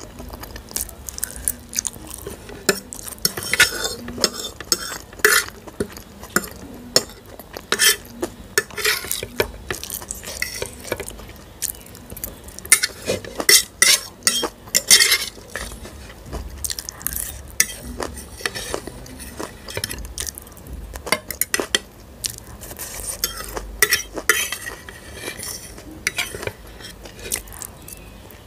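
Close-up eating sounds: fingers scraping masala Maggi noodles off a ceramic plate, and chewing, heard as a dense, irregular run of clicks and smacks.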